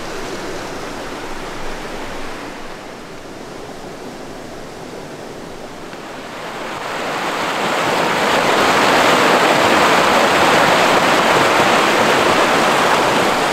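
A rushing, white-water mountain stream, a steady rush of water that grows much louder about seven seconds in.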